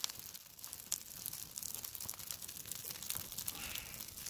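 Small kindling fire of dry twigs and needles crackling with many irregular sharp snaps as it catches, along with the rustle of twigs being pushed into it.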